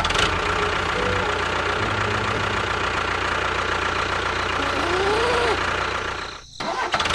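A motor running steadily, dropping out for a moment a little past six seconds in.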